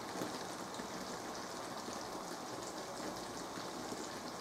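Diced chicken and mushrooms frying in a wok, a steady soft crackling sizzle.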